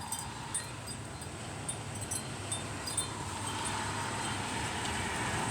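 Dust-storm wind blowing steadily, with wind chimes tinkling in the gusts: scattered short, high pings over the rush of the wind.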